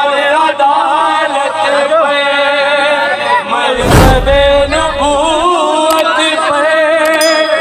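Men singing an Urdu manqabat devotional song together, their voices chanting in unison. A heavy thump comes about four seconds in.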